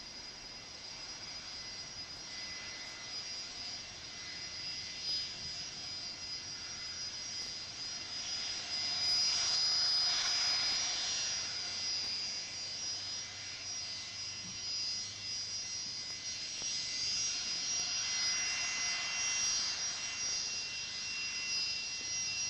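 The CFM56 turbofan engines of an Airbus A318-111 run with a steady high whine over a rushing noise. The sound swells louder about halfway through and again near the end.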